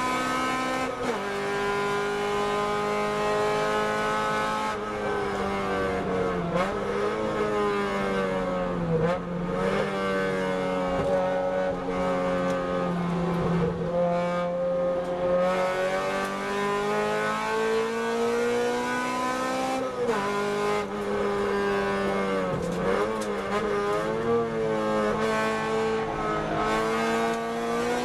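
Car engine running hard around a race track, holding steady revs for several seconds at a time, with the pitch dropping and climbing again about every few seconds as the car slows for corners and accelerates out.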